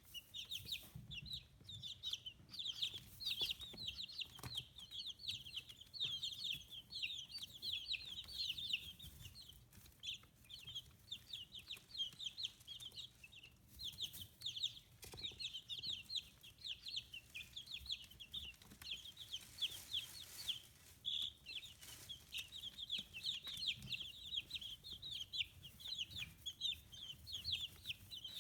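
A brood of 15-day-old chicks peeping continuously: many short, high, downward-sliding cheeps overlapping in a steady chorus that thins out somewhat midway before becoming dense again.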